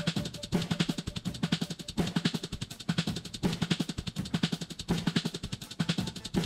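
Background music: a fast drum-kit beat with dense, repeating snare and bass-drum hits.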